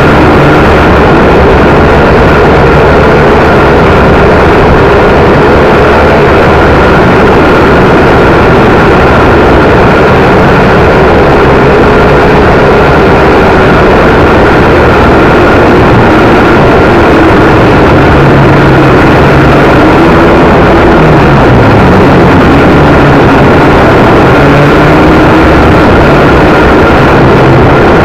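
WLtoys V959 toy quadcopter in flight, its motors and propellers giving a steady high whine with lower tones that waver up and down as the motor speeds change. Heavy wind noise on the microphone runs underneath.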